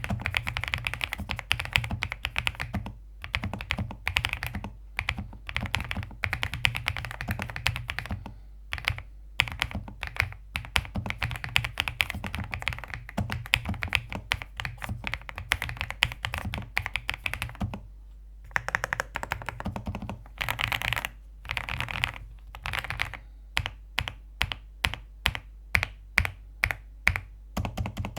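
Mechanical keyboard typing: an Ajazz AK820 with Gateron Smoothie Silver linear switches (45 g). Fast runs of keystrokes with brief pauses give way, for the last few seconds, to slower single keystrokes at roughly three a second.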